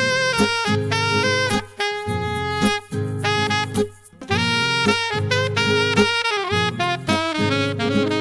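Instrumental music with a saxophone-like lead playing sustained melody notes over a steady bass accompaniment, with a short break about four seconds in.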